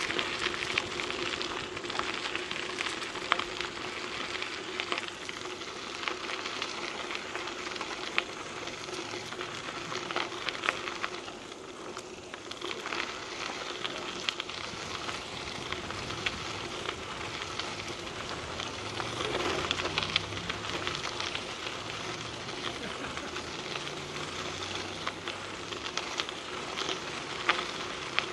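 Mountain bike tyres crunching over a gravel trail: a steady crackle of loose stones with scattered sharp pops, easing briefly about twelve seconds in.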